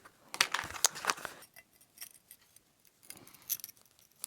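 Light clicks and taps of small hard objects being handled, clustered in the first second and a half, then a few faint ticks.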